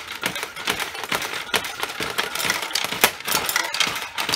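Steel balls of a vintage pachinko machine being shot and clattering down through the pins and pockets of the playfield: a dense, irregular patter of small metallic clicks and taps.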